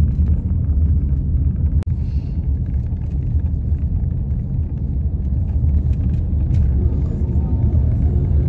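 Steady low rumble of road and engine noise inside a moving car's cabin, with a brief dropout about two seconds in.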